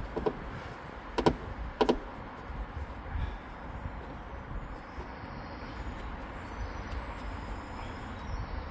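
A car's interior parts being forced off by hand: three sharp snaps or clicks in the first two seconds, then quieter scraping and rustling.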